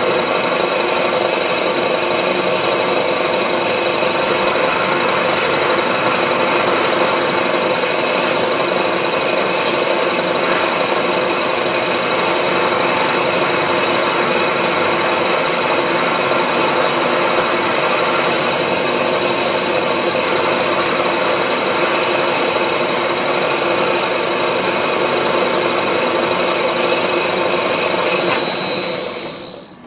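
Milling machine running steadily, then switched off and spinning down just before the end.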